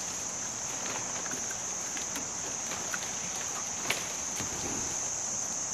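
A steady high-pitched drone of insects runs without a break. Over it come scattered light rustles and clicks from dry palm fronds and coconut stalks being handled, with one sharper snap about four seconds in.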